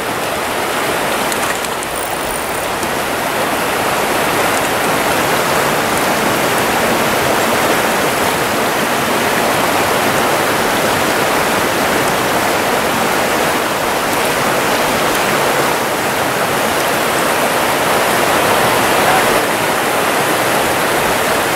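Steady rushing of a shallow, rocky stream, its current running over riffles.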